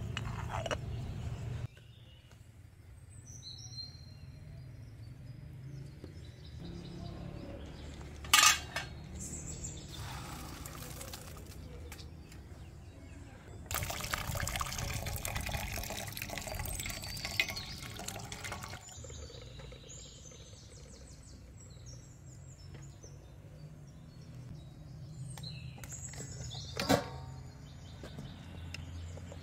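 Starchy rice water pouring from a perforated stainless steel colander into a steel bowl for about five seconds. Two sharp metal clinks of pots and utensils come before and after it.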